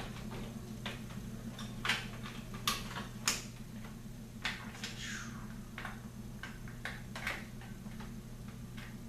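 Scattered clicks and plastic rattles of wire-harness connectors being handled and plugged into the power supply board of an LCD TV, a few sharp clicks standing out about two to three seconds in. A steady low hum runs underneath.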